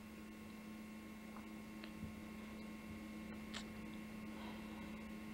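Faint steady electrical hum over a light hiss.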